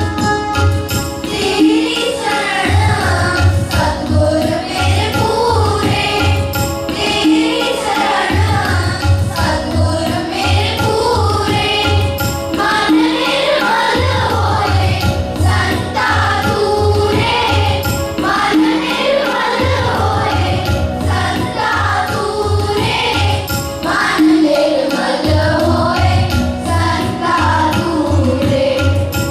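A group of children singing a Shabad, a Sikh devotional hymn, in unison, with steady instrumental accompaniment and a repeating drum beat.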